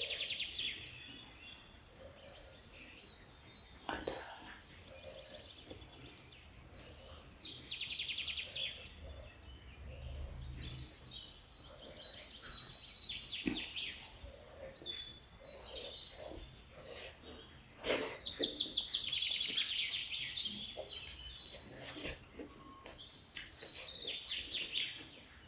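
Birds chirping and trilling in bouts, with a few sharp clicks and soft sounds of eating between them.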